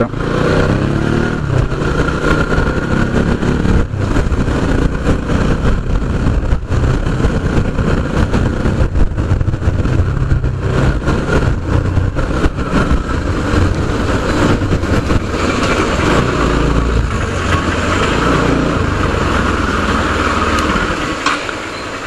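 Motorcycle engine running steadily while being ridden, heard from on the bike.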